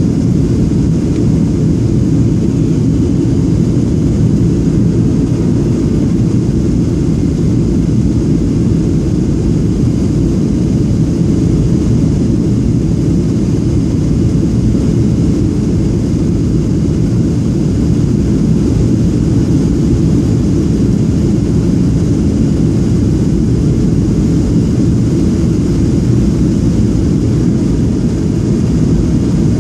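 Steady low rumble inside the cabin of a Boeing 737-700 on approach: its CFM56 jet engines and the rush of air over the extended flaps, unchanging throughout.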